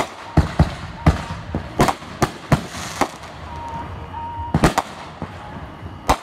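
Aerial fireworks bursting in an irregular string of sharp bangs, about ten in all, some coming in quick pairs.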